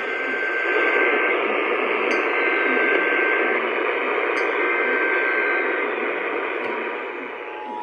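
Radio static: a steady hiss with a faint thin whistle that comes and goes. Near the end the hiss fades and a steady two-tone beep begins, the start of the Emergency Alert System attention signal.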